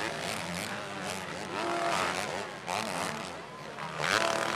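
Motocross dirt bikes racing on a dirt track, their engines revving up and dropping away in a rising and falling whine as the riders work the throttle.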